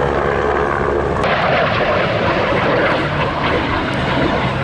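Propeller aircraft engine running with a steady drone under a broad rushing noise; the sound changes abruptly about a second in.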